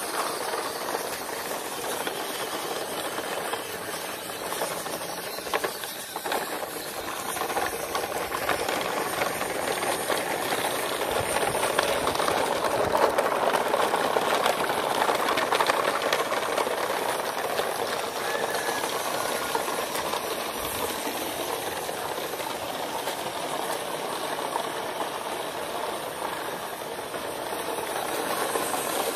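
A line of plastic toy trucks towed by an RC pickup, rolling over rough concrete: a steady rattling hiss of wheels and loads, louder in the middle.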